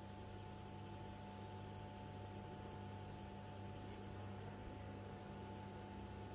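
A high, steady insect trill pulsing about eight times a second, over a faint low electrical hum.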